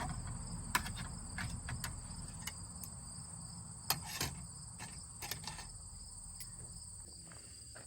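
Crickets chirping steadily in the background, with scattered light clicks and knocks, the loudest about four seconds in, from freeing cooked bratwursts that have stuck while cooking.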